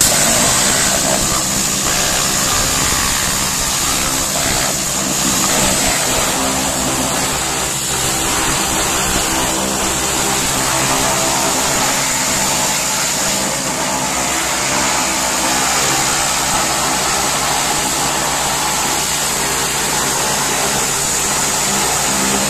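Gas-powered 7000 PSI belt-drive pressure washer with a Honda engine running steadily. Its high-pressure water jet hisses continuously as it blasts paint off the metal frame of a line-striping machine.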